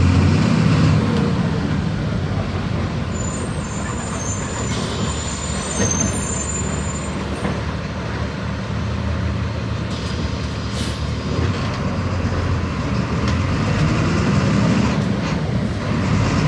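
Volkswagen 17.230 EOD bus's diesel engine running, its pitch shifting a little, with a high squealing whine for a few seconds and a short hiss of air about ten seconds in.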